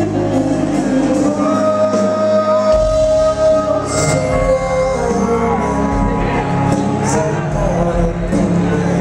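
Live rock band playing electric guitars, bass and drums while a man sings into the microphone. The low end drops out briefly about two seconds in and comes back.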